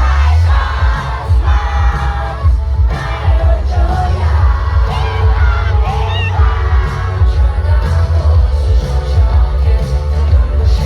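Live K-pop concert sound: a song played loud over the PA with heavy pulsing bass and a singer's voice, and the crowd shouting and singing along.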